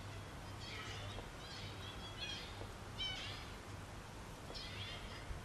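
Short, high animal calls, coming in several quick clusters, over a steady low hum.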